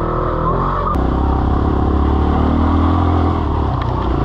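Four-stroke single-cylinder dirt bike engines idling, then, after a cut about a second in, a Kawasaki KLX140 engine running under load as it climbs a rocky trail, its pitch slowly rising before it eases off near the end.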